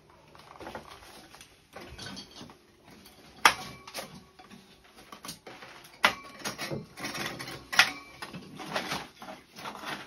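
Sharp knocks and clinks of hand tools and metal fittings being handled, with scraping between them; the loudest strikes come about three and a half seconds in and near eight seconds.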